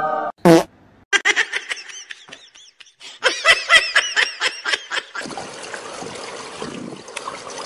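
High-pitched laughter in quick bursts, in two runs, the second louder, after a short loud sound about half a second in. About five seconds in it gives way to a steady outdoor hiss.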